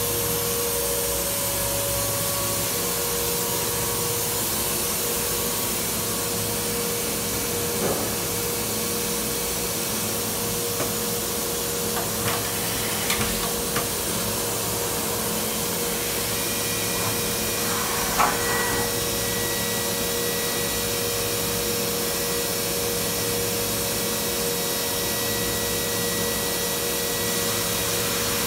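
Steady machine whir with a hiss and a constant hum, from a Milltronics VM17 CNC vertical machining center running under power, with a few light clicks and knocks along the way.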